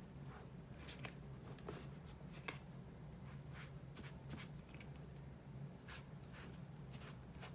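Faint, scattered scratching and rubbing strokes of white touch-up paint being applied to a sneaker's sole, over a low steady hum.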